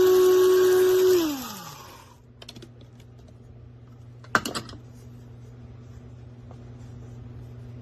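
Amazon Basics electric blade coffee grinder's motor running at a steady high whine, then switched off about a second in and spinning down with a falling pitch. A few seconds later comes a short burst of sharp clicks.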